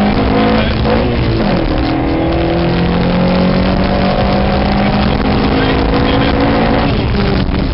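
Rally car's engine heard from inside the cabin, pulling hard with tyre and road noise. The engine note dips about a second in, climbs slowly and steadily, then falls away near the end as the driver comes off the throttle.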